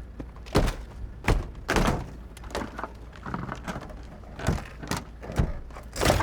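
A string of irregular knocks and thuds, about six heavier ones with lighter taps between, over a steady low rumble.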